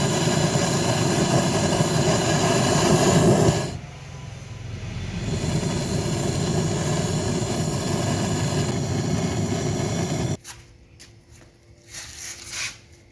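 A loud, steady machine noise, full of faint steady tones. It drops out briefly about four seconds in, builds back up, then cuts off suddenly about ten seconds in.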